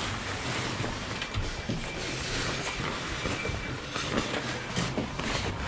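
Fabric scooter cover rustling and scraping steadily as it is tugged and fitted over the scooter, with scattered light knocks.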